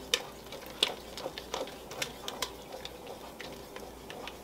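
Spoon stirring boiling strawberry jam in an enamelled pot as a honey and pectin mixture is poured in: irregular light clicks and taps, several a second.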